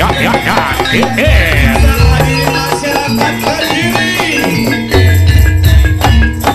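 Loud East Javanese jaranan/barongan parade music: deep, gong-like bass notes under dense, rapid clattering and jingling percussion, with a wavering pitched line above.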